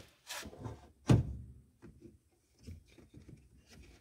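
Handling sounds from work on the engine's timing-belt parts: a loud knock with a short ring about a second in, then lighter knocks and rustling.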